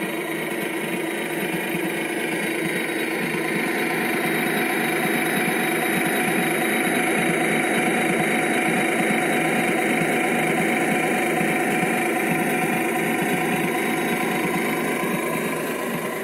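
Model railroad freight train, three diesel locomotives and a long string of hopper cars, running steadily across a trestle. It gives a continuous mechanical running hum that swells a little toward the middle and eases off near the end.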